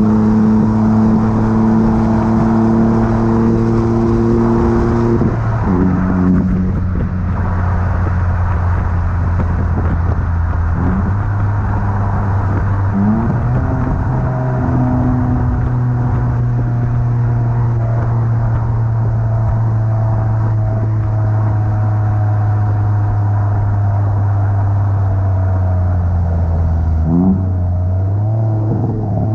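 Chevrolet Onix RS's 1.0 turbo three-cylinder engine running at fairly steady revs through an aftermarket sports exhaust with replaced intermediate and rear mufflers, giving a loud, steady tone. The pitch drops about five seconds in and shifts briefly a few more times as the revs change.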